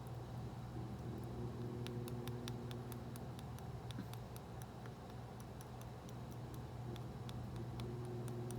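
Small plastic knife tapping and clicking against a plastic tray in quick, irregular light clicks while chopping up the candy pieces of a Popin' Cookin' sushi kit, starting about a second and a half in; a steady low hum underneath.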